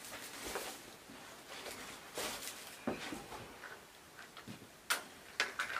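Dry brushwood twigs rustling and snapping as they are handled, with several sharp cracks, the last few close together near the end.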